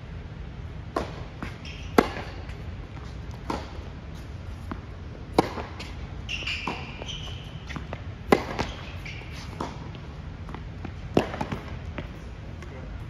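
Tennis rally on an indoor hard court: sharp pops of racket strings hitting the ball and the ball bouncing on the court, the loudest strikes coming about every three seconds. A brief high squeak about six and a half seconds in.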